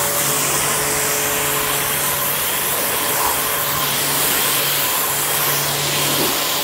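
Starq AWP 2.8 electric pressure washer running at full pressure, its motor humming steadily under the hiss of the water jet rinsing foam off a car's bodywork.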